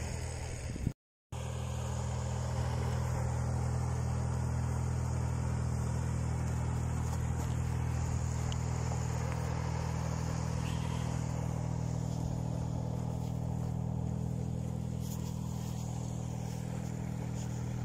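Motor vehicle engine running with a steady low drone that does not change in pitch. The sound cuts out completely for a moment about a second in.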